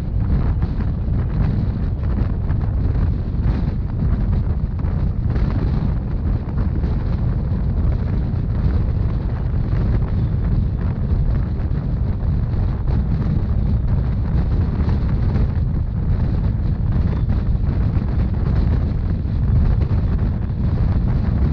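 Steady low rumble of a narrow-gauge passenger train running along the line, with wind rushing over the microphone.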